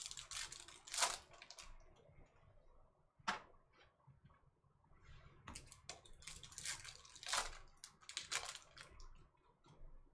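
A foil 2022 Topps Chrome Formula 1 card pack crinkling and tearing as it is ripped open by hand, in several short bursts of rustling.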